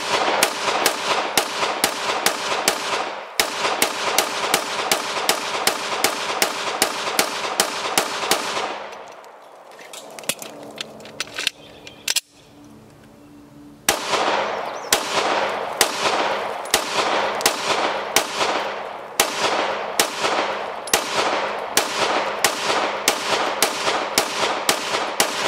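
Rapid gunfire, about three or four shots a second, in two long strings. The first string stops about 9 seconds in. After a pause of about five seconds with a few faint clicks, the second string starts and keeps going.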